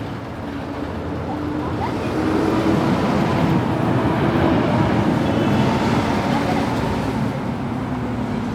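City street traffic with a motor vehicle passing close by: its engine and tyre noise swells about two seconds in, is loudest mid-way and fades toward the end.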